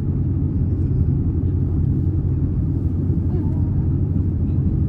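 Inside the cabin of an Airbus A350-900 taxiing: a steady low rumble from its Rolls-Royce Trent XWB engines at taxi power and the aircraft rolling along the taxiway.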